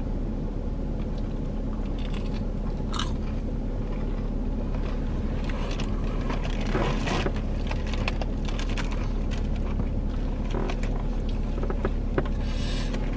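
Close-up chewing and biting of Taco Bell food, with scattered small crunches and clicks, over a steady low hum.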